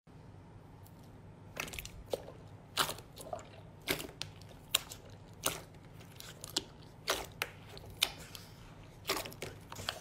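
Glossy purple slime pressed and kneaded by hand in a plastic tub, making short, sharp sticky pops and clicks at an irregular pace of one or two a second over a faint low hum.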